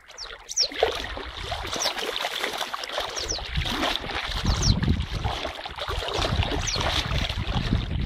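Water sloshing and splashing around a Siberian husky swimming close by, with a low wind rumble on the microphone that grows stronger about halfway through.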